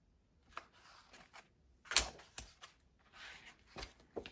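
Hardcover coloring books being handled on a table: a book closed and lifted, with paper and plastic cover rustling and several light knocks, the loudest a sharp knock about two seconds in.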